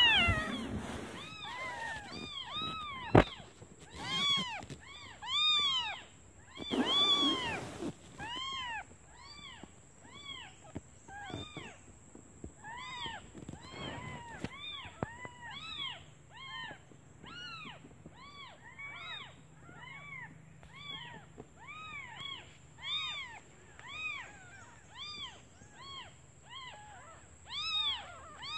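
Several newborn kittens mewing over and over, short high-pitched calls rising and falling in pitch, overlapping one another: kittens calling for their absent mother, hungry. A single sharp click about three seconds in.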